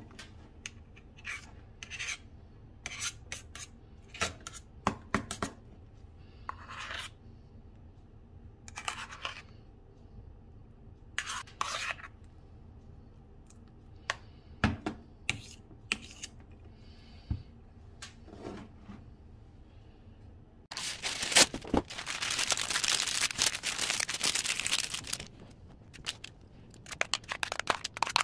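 A metal spatula scraping and stirring thick grated-garlic paste in a small stainless steel bowl, with scattered short scrapes and clicks of metal on metal. About 21 s in, a louder, continuous rasping scrape lasts about four seconds, then short scrapes resume.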